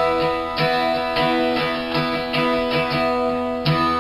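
Guitar playing the opening bars of a song, with chords struck in a steady rhythm of about three strokes a second.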